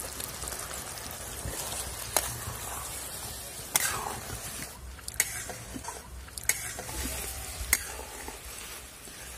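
Diced raw green mango sizzling in bubbling sugar syrup in an aluminium wok, stirred with a metal spatula that clinks against the pan about five times.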